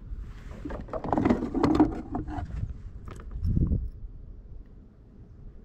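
Handling noises in a plastic fishing kayak as a small pike is brought in: a cluster of knocks, clicks and scrapes, then a single dull knock about three and a half seconds in.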